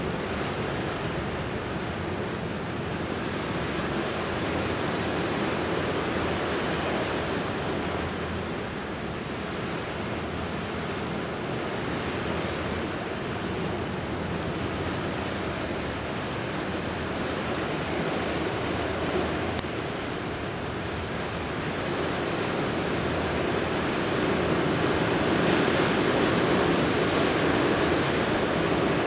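Steady rushing noise of the sea and wind along the shore, swelling somewhat near the end.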